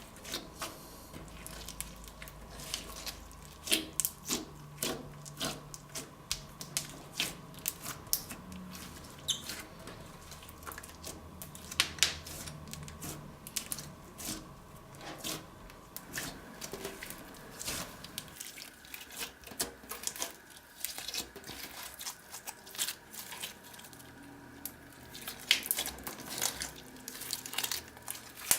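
Slime being mixed and squeezed, giving irregular sticky clicks, pops and crackles.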